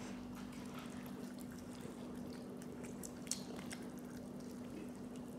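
Faint wet mouth sounds of someone eating a fried chicken drumstick, with a few small clicks, over a steady low hum.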